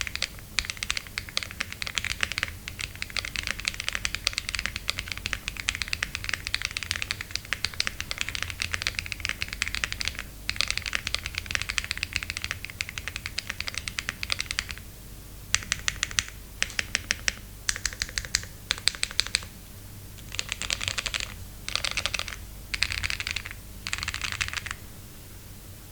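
Typing on a Lucky65 v2 aluminium-case mechanical keyboard with Taro Latte switches, an FR4 plate and PBT keycaps. There are about fifteen seconds of fast continuous keystrokes, then short runs of keystrokes with pauses between them, ending about a second before the close.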